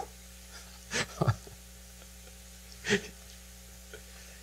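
A few brief breathy puffs from a man at a microphone, about one second and three seconds in, over a low steady hum.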